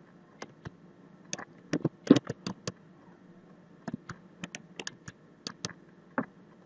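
Typing on a computer keyboard: two runs of about ten quick, irregular key clicks with a short pause between them, then one last keystroke near the end.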